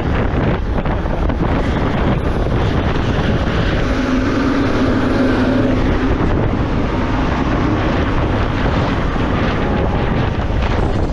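Strong mountain wind blowing hard across the microphone: a loud, constant rumbling rush of wind noise. A low steady tone sounds for a few seconds midway.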